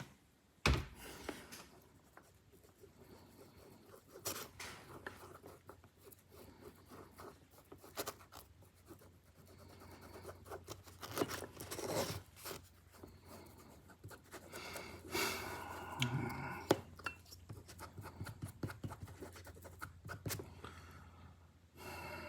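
Intermittent clicks, taps and scraping of small metal knife parts and tools being handled on a workbench.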